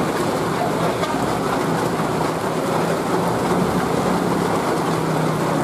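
Heavy rain pouring steadily onto a flooded road surface, with a car engine running at a steady pitch underneath.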